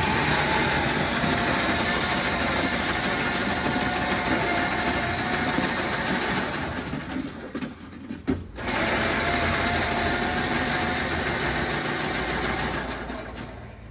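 Electric ice shaver running, a steady grinding whir with a wavering motor whine. It is switched off for about half a second around eight seconds in, starts again, and winds down near the end.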